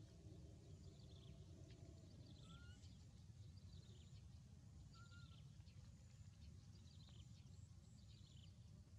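Near silence: faint outdoor ambience with a low rumble and scattered faint bird chirps, and two short faint whistles about two and a half and five seconds in.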